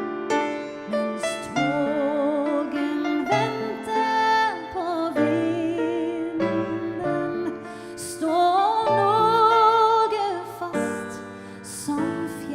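A woman singing a slow song with vibrato to piano accompaniment. Her voice rises to a long held note, the loudest part, from about eight seconds in until nearly eleven.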